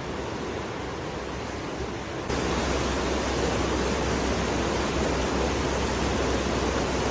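Steady rush of flowing water. About two seconds in it turns abruptly louder and fuller, with more low rumble.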